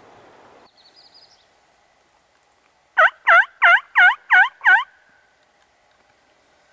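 Turkey calling: a run of six loud calls, about three a second, each falling in pitch.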